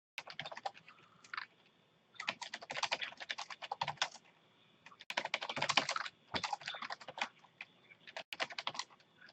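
Typing on a computer keyboard: quick runs of key clicks in four bursts with short pauses between them.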